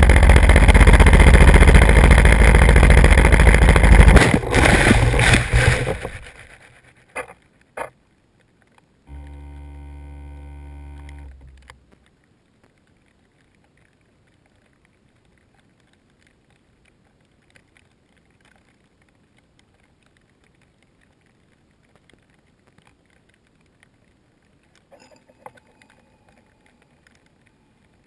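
Loud rushing wind and motor noise from a low-flying camera-carrying model aircraft. It stops abruptly about four seconds in and dies away as the craft comes down in the grass. A couple of clicks follow, then a steady pitched hum for about three seconds, then near silence.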